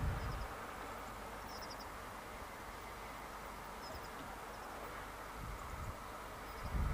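Quiet outdoor ambience with a steady hiss and some low wind rumble on the microphone near the start. A few faint groups of quick high bird chirps come through, about four times.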